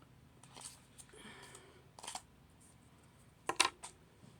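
A few light clicks and taps of small plastic toys being handled and set down, the loudest a quick double tap about three and a half seconds in.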